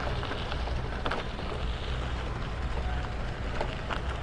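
Wind buffeting the microphone while riding a bicycle: a steady low rumble with hiss over it.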